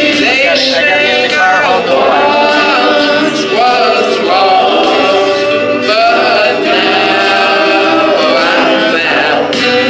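Gospel vocal group of men and women singing together in harmony into microphones.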